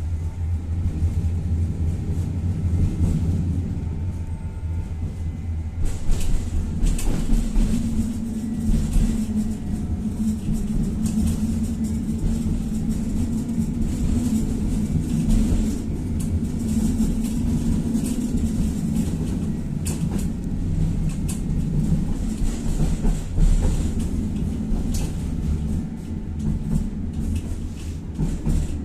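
Tatra-Yug K1M tram running along the track, heard from aboard: a steady low rumble with scattered knocks of the wheels on the rails. A humming tone comes in about seven seconds in and fades out around twenty seconds.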